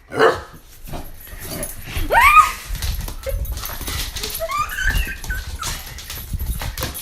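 Puppy whining and yipping: a short yip at the start, a sharp whine that rises then falls about two seconds in, and a longer arching whine around five seconds.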